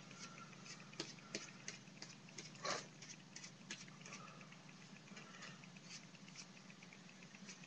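Paintbrush being worked over a lobster buoy: faint, irregular scratchy ticks and brush scrapes, one a little louder about three seconds in, over a steady low hum.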